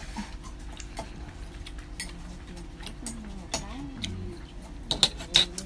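Scattered small clicks and clinks of tableware and shellfish shells being handled while eating, with a few sharper clicks near the end.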